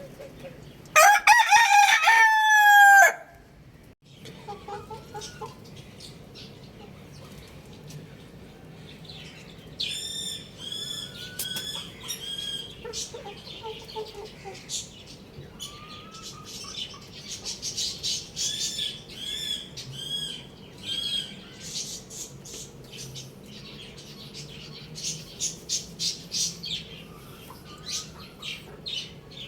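A rooster crows once, loud and drawn out for about two seconds, starting about a second in. From about ten seconds in, quieter high chirps repeat in runs, with a few soft lower calls among them.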